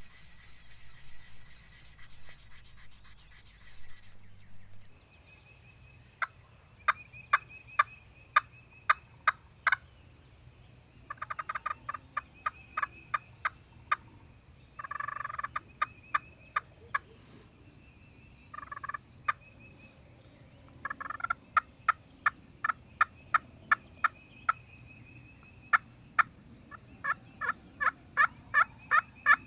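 Wild turkeys calling: long runs of sharp notes about two a second, broken four times by short rattling gobbles.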